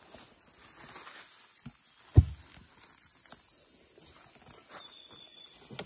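Steady high drone of forest insects, with one short, dull, deep thump about two seconds in.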